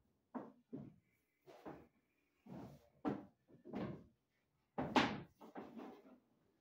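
Irregular knocks and clunks, about a dozen, from work materials being handled and set down on a bare wooden floor; the loudest comes about five seconds in.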